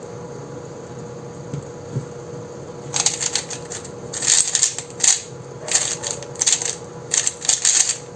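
Speed cube being turned fast in a solve: bursts of rapid plastic clicking and clacking, starting about three seconds in, with short pauses between bursts. A faint steady hum comes before the turning starts.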